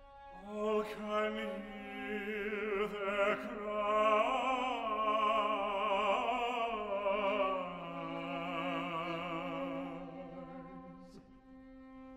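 Operatic singing: a voice with wide vibrato over sustained orchestral accompaniment. The voice comes in about half a second in and dies away near ten seconds, leaving held low notes.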